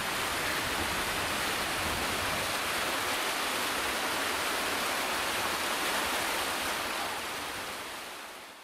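Steady rushing of a mountain stream cascading through a rocky gorge, fading out near the end.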